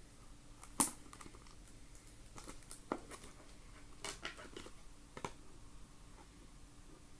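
A trading-card box being opened by hand: scattered clicks and crinkles of cardboard and wrapping. A sharp click about a second in is the loudest.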